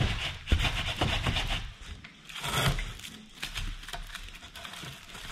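Plastic wrapping and cardboard packaging rustling and crinkling as wooden garden furniture is unpacked, with scrapes and a sharp knock about half a second in.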